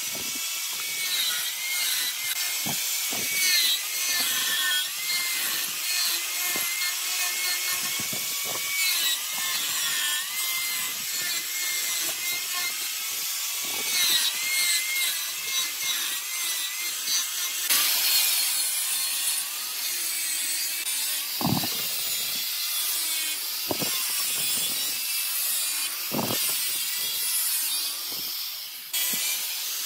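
Hand-held angle grinder with an abrasive disc grinding into wood, a steady rasping hiss over the motor's whine, which drops in pitch each time the disc is pressed into the wood and climbs back as it eases off. A few dull knocks come in the second half.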